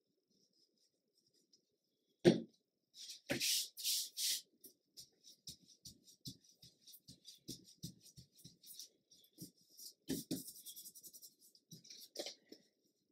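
Paper being handled on a journal page: a single sharp knock about two seconds in, a few louder rustles, then a long run of small irregular crackles and taps.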